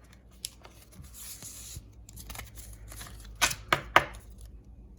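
Pokémon trading cards and pack wrappers being handled: a soft rustle and sliding, with a few sharp taps and clicks, three in quick succession near the end.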